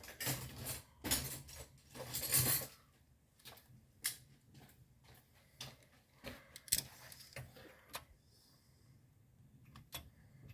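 Metal hand tools clattering and jangling for a couple of seconds as pliers are picked up, then a few separate sharp metallic clicks as the pliers work at a loose roller lifter in the engine.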